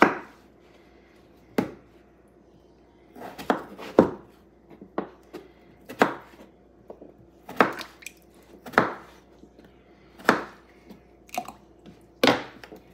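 Kitchen knives cutting raw potatoes on a wooden cutting board: separate sharp knocks of the blades striking the board, about one every one and a half to two seconds, from two people cutting at once.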